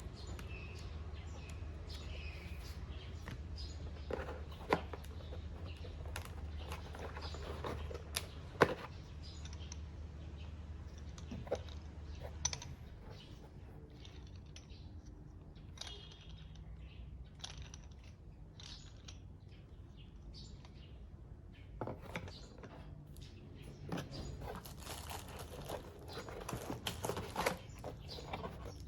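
Packaging being handled and unwrapped: irregular rustling and crinkling with scattered small knocks and clicks, over a steady low hum that fades out about halfway through.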